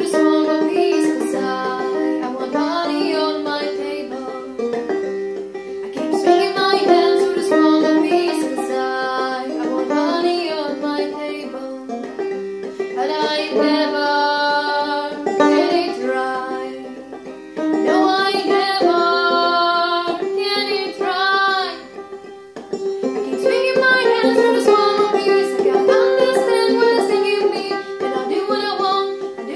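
Clawhammer (frailing) banjo strummed in a steady downstroke rhythm, with a woman singing the melody over it.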